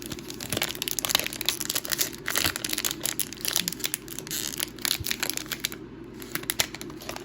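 Trading card pack wrapper crinkling and tearing as it is ripped open and peeled down by hand: a dense, irregular run of crackles throughout.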